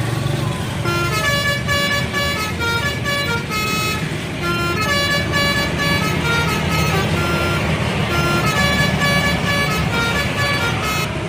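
Bus telolet horn playing a quick tune of short, stepped notes, starting about a second in, over the low rumble of the bus engine.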